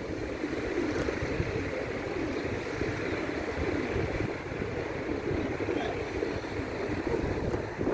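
A group of pigeons cooing together in a steady low murmur, with wind rumbling on the microphone.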